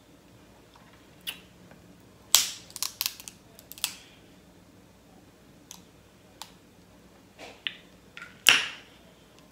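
Cooked crab legs being snapped apart by hand: a series of sharp shell cracks and snaps, the loudest about two and a half seconds in and again near the end.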